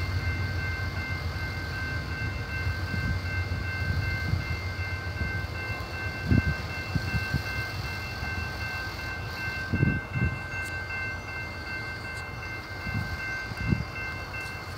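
A train passing, its low rumble fading away, with a few dull thumps. A steady high-pitched ringing tone sounds over it and stops near the end.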